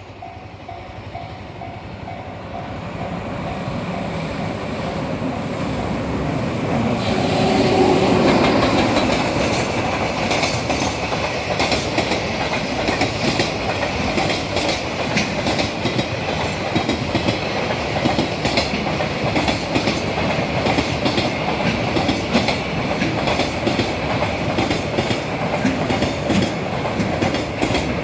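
A freight train passing a level crossing. It grows louder over the first several seconds and is loudest about eight seconds in as the locomotive goes by. A long string of freight wagons follows, their wheels clattering rapidly over the rail joints.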